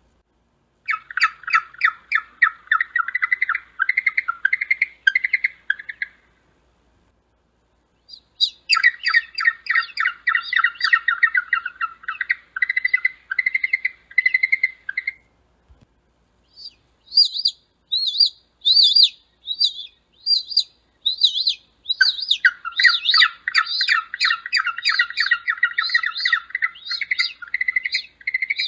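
Penguins calling in rapid runs of chirping squawks, in three bouts with short gaps between them. In the last bout a higher, quicker series of calls starts first, and the lower chirping joins it a few seconds later.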